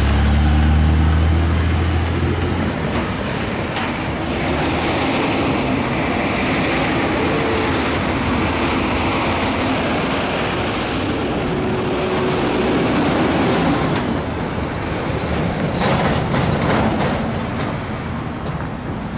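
Road traffic at a railroad crossing: a truck engine runs close by for the first two seconds or so, then gives way to a steady hiss of passing cars and road noise.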